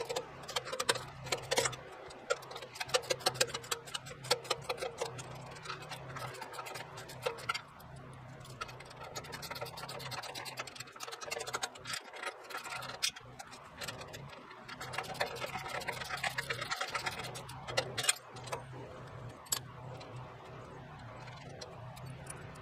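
Ratchet wrench clicking in quick runs, with short pauses between them, as nuts on the sawmill track's leveling feet are tightened. A faint low steady hum lies underneath.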